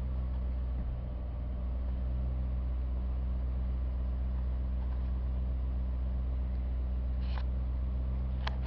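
Ford F-150's 5.4-litre V8 running steadily at about 1,000 rpm in drive while stationary, heard from inside the cab, holding load on the 6R80 automatic so the transmission fluid climbs to 190 degrees. A couple of sharp clicks come near the end.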